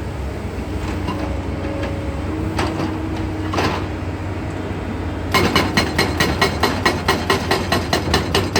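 Excavator's diesel engine running steadily with a few knocks, then about five seconds in a hydraulic breaker starts hammering rapidly, about four or five blows a second.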